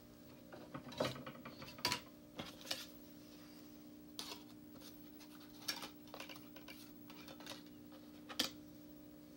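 Disc-tray mechanism of an old Magnavox DVD player clicking and ratcheting, with several sharp clicks at irregular intervals over a faint steady hum.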